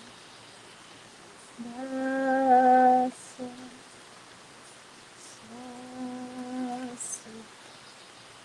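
A woman humming two long held notes on the same steady pitch, each about a second and a half long and each followed by a brief short note. The first hum, about two seconds in, is the louder.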